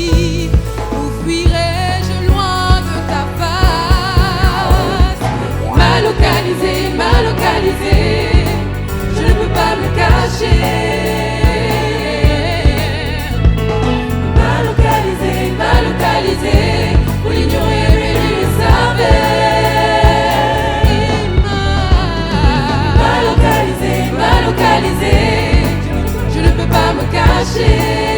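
Gospel song with a choir singing over a band, driven by a steady drumbeat.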